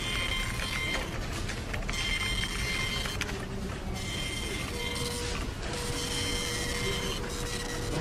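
Office printer running, a steady mechanical whine with several tones, broken by short pauses every second or two as it works through a job.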